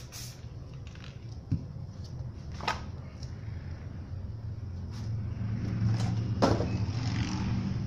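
Low steady mechanical rumble that swells louder about five to seven seconds in, with a few sharp clicks and knocks scattered through it.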